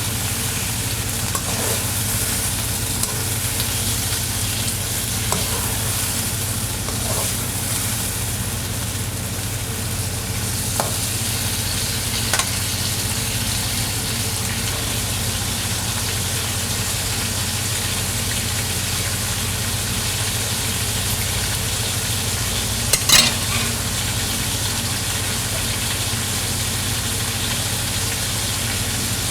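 Food sizzling in hot oil in a karahi while it is stirred, a steady frying hiss. A few sharp knocks break through, the loudest about 23 seconds in.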